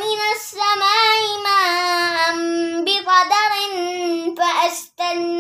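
A boy's voice reciting a Quran verse in Arabic in a melodic chant, holding long drawn-out notes and pausing briefly near the end.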